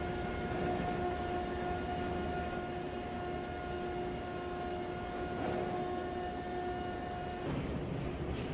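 Machinery in an ice-core drilling shelter running with a steady whine over a low rumble. The whine cuts off sharply near the end.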